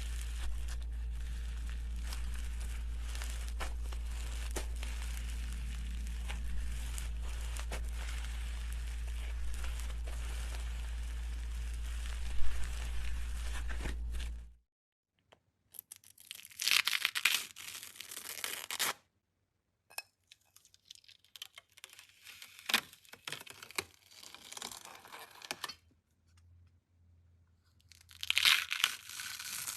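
Crinkling, crunching sounds of a mixture being stirred or worked, continuous over a steady low hum for about the first half. After a short break they come in separate spells, loudest about two-thirds through and near the end.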